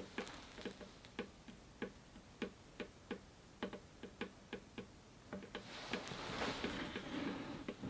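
Water drops falling one by one from a freshly primed Black Berkey filter element into the lower bucket, with irregular sharp little drips about two to three a second: the filter is passing water by gravity. A soft rustling noise joins in over the last couple of seconds.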